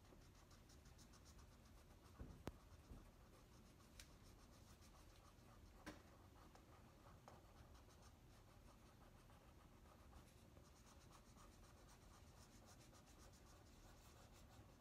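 Felt-tip markers rubbing on paper in quick back-and-forth colouring strokes, faint, with a few light knocks about two, four and six seconds in.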